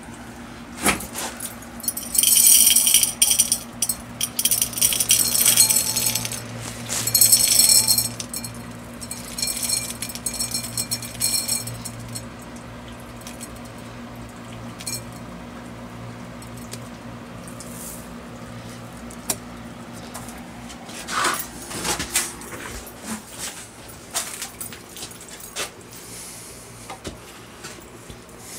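Granular activated carbon poured into a filter tube, rattling and hissing in several loud bursts over the first few seconds, then fading. A few knocks and clicks come later as the parts are handled, over a steady low hum.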